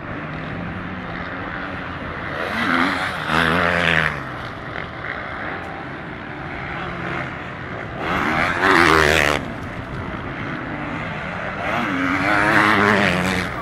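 Motocross bike engines revving hard, their pitch rising and falling, in three loud passes about 3, 8½ and 12½ seconds in. Between the passes there is a steadier, lower engine noise from further off.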